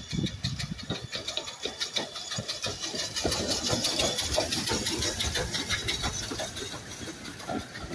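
BR Standard Class 5 two-cylinder 4-6-0 steam locomotive No. 75069 passing with a train: a quick run of exhaust beats and steam hiss with wheel clatter, loudest as the engine goes by about four seconds in. The coaches then roll past and the sound eases.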